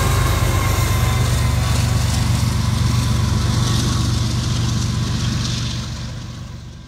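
A freight train's trailing diesel locomotive running past with a steady low engine drone, then fading away near the end.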